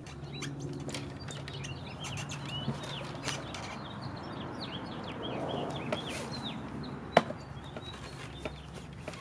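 Songbirds chirping over and over in quick, short falling notes, with a faint steady low hum beneath them. A single sharp click about seven seconds in is the loudest sound.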